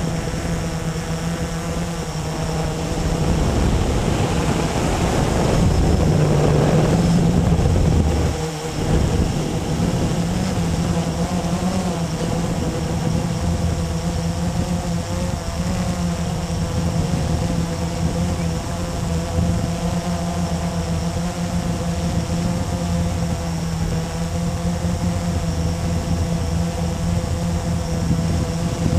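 Blade 350QX quadcopter's four brushless motors and propellers buzzing steadily in flight, heard from the camera mounted on the drone itself. The sound swells with a rush of air from about three to eight seconds in, then dips briefly.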